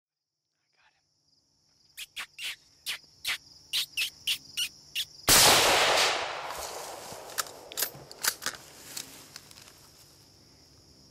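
A single rifle shot about five seconds in, sudden and by far the loudest sound, its echo dying away over several seconds. Before it comes a quick run of short sharp sounds, about three a second, and a steady high insect drone runs underneath.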